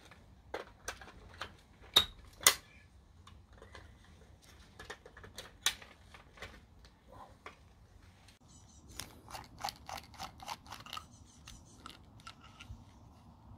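Sharp plastic clicks and snaps from a plug-in mechanical timer being handled and pushed into a wall socket with a hinged cover. Two loud snaps come about two seconds in, another near the middle, then a quick run of lighter clicks.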